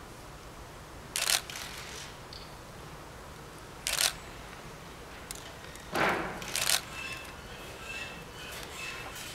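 A few short, sharp clicks in a quiet hall: one about a second in, one about four seconds in, and a louder pair about six seconds in. Faint voices murmur near the end.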